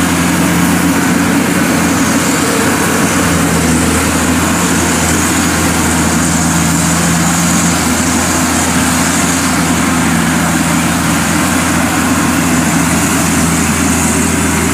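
Zoomlion rice combine harvester running under load while it cuts and threshes rice: a steady engine hum with even machinery noise over it.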